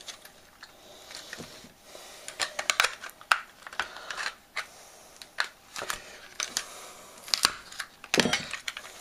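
Plastic case of a cheap laptop power adapter being pried apart with a metal fork: an irregular run of sharp cracks and clicks as the case gives way, in several clusters with pauses between.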